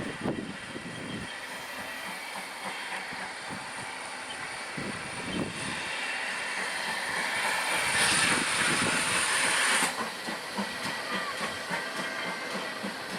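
Steam train passing, its hiss of steam building to a peak and then stopping abruptly about ten seconds in, followed by the clatter of wheels over rail joints.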